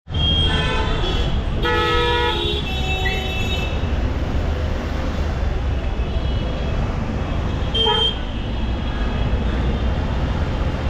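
Horns honking several times over a steady, loud background din: a short toot in the first second, a longer multi-tone blast about two seconds in, another around three seconds, and a brief toot near the end.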